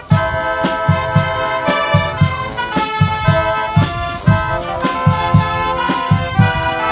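Wind band playing a tune live, several held notes in harmony over a steady bass-drum beat of about two beats a second.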